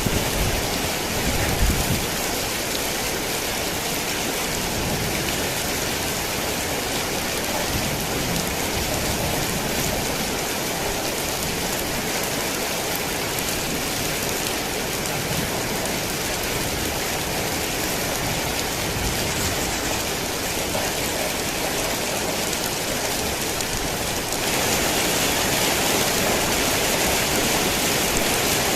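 Heavy rain falling in a steady, even hiss. There is a brief low rumble in the first two seconds, and the rain gets a little louder about 24 seconds in.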